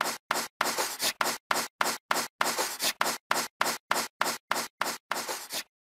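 Chalk scratching on a blackboard sound effect: short scratchy strokes, about three a second, with clean silence between them, as lines are drawn.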